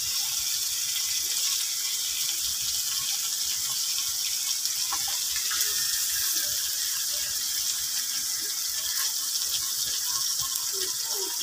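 Onion-and-spice masala sizzling steadily in hot oil in a cast-iron pot, a continuous high hiss with a few faint ticks.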